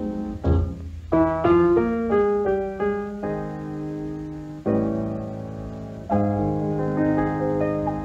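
Piano closing a slow vocal ballad: a quick run of single notes, then a few slow, sustained chords as the recording ends.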